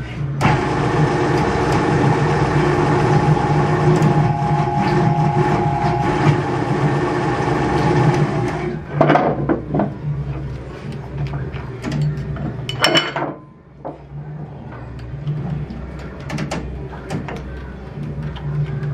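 Hydraulic press's motor and pump running: a louder, steady whine for the first eight or so seconds that then drops back to a lower steady hum. A few metal knocks as parts are handled at the press, and a brief hiss about two-thirds of the way through.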